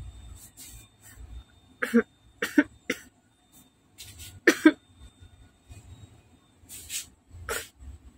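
A man coughing repeatedly in short bouts: two or three coughs about two seconds in, a double cough in the middle, and one more near the end.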